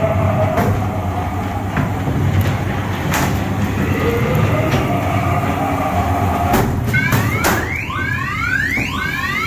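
Ghost train ride car rumbling and rattling along its track, with scattered clicks. About seven seconds in come two knocks, then a fast run of rising chirps, about two a second.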